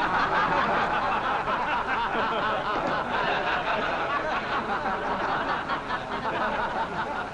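A seated audience laughing together: many people's laughter breaks out suddenly and carries on, easing off slightly near the end.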